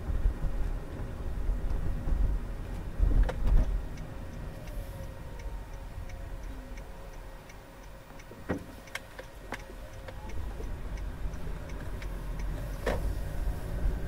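Car cabin rumble from engine and tyres, dipping quieter in the middle, with a turn-signal indicator ticking steadily at about three clicks a second. A few sharp knocks, from bumps in the road, break in.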